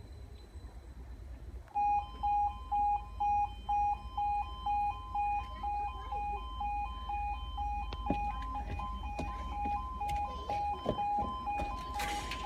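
A railway level-crossing warning signal starts about two seconds in: an electronic two-tone beeping that switches between two pitches about twice a second, warning that a train is approaching.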